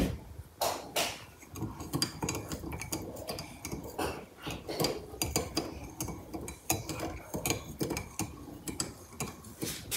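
Dishes and cutlery clinking: a run of small, irregular taps and clinks of crockery and metal.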